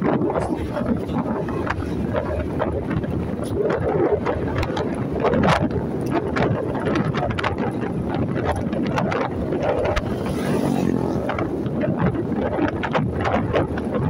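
Wind buffeting the microphone of a moving motorcycle, with the motor and road noise running beneath. The engine's hum shows more plainly for a moment about ten seconds in.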